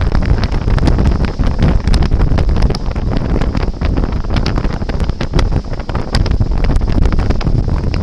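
Heavy wind buffeting the microphone on a banana boat towed at speed across the sea, a loud, continuous low rumble with frequent crackles, over the rush of water from the wake.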